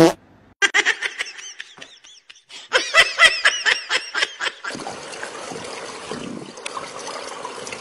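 Two quick runs of short, high-pitched vocal calls, each call rising and falling in pitch, like rapid laughter. They give way a little before the five-second mark to a steady background hiss.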